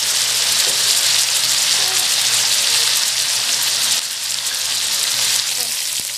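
Blue marlin slices frying in hot oil in a wok: a steady, dense sizzle that drops slightly in level about four seconds in.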